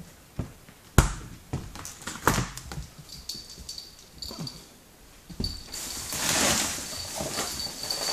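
A puppy moving about on a wooden floor: scattered knocks and taps, the sharpest about a second in, then a stretch of rustling toward the end.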